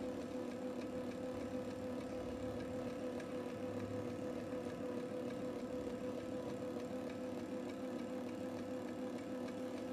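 Electric motor of a Clearline atta kneading machine running with a steady hum, its kneading blade turning flour in the bowl while water is added at the start of kneading.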